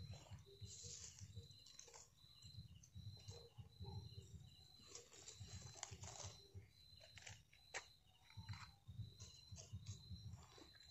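Faint clicks and rustling of dry leaves and twigs being handled while a small campfire is lit. Behind them, a high, thin chirp repeats evenly, less than a second apart: a night insect.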